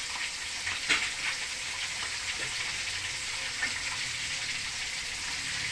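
Food frying in hot oil in a wok: a steady crackling sizzle, with a sharper click about a second in.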